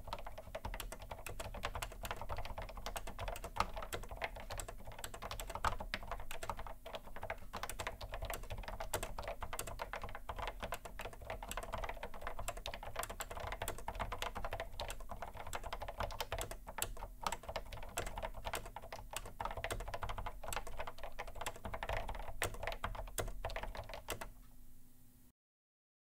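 Continuous typing on an Epson Q703A keyboard with second-generation Fujitsu leaf spring linear switches fitted with dampeners: a steady stream of dampened keystrokes. The typing stops near the end.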